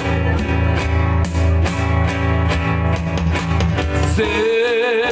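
Two acoustic guitars strumming a rhythmic accompaniment, with a strong low bass line. A man's voice comes back in, singing, about four seconds in.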